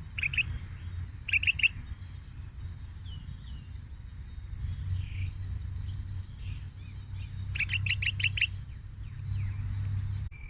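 Young bulbul chirping: two short notes at the start, a quick group of three about a second and a half in, and a rapid run of about six notes about eight seconds in, over a low steady rumble.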